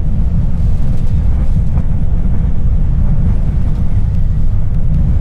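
Semi-truck running: a steady low rumble of engine and road noise.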